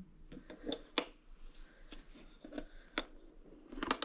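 Scattered light clicks and taps from handling a portable fridge-freezer's lid and rubber seal, with sharper clicks about a second in, about three seconds in and near the end.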